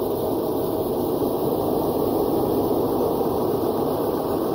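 Steady running noise of a Cummins ISB 5.9 L 24-valve diesel engine, heard close up from beside the engine cover.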